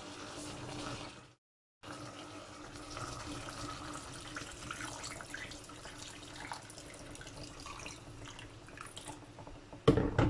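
Water running from a kitchen tap into a sink, with small clinks and splashes as something is rinsed under it. It breaks off briefly about a second and a half in, and one loud knock comes near the end.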